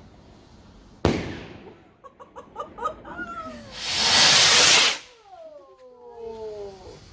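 Garden fireworks going off: a sharp bang about a second in, a run of crackling pops, then a loud hissing burst around four seconds in, followed by falling whistling tones.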